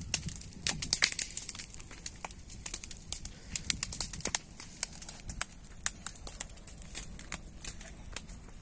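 Dry sugarcane trash burning in the field, the fire crackling with irregular sharp pops, several a second.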